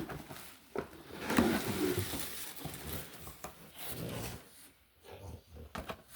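Packaging and items being handled during an unboxing: irregular rustling and rubbing with a few short knocks, loudest about a second in.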